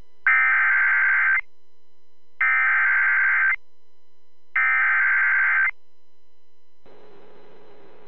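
Emergency Alert System SAME header: three bursts of buzzing digital data tones, each about a second long and a second apart, the coded header that opens a severe thunderstorm warning broadcast. A faint hum runs underneath, and a faint hiss comes in near the end.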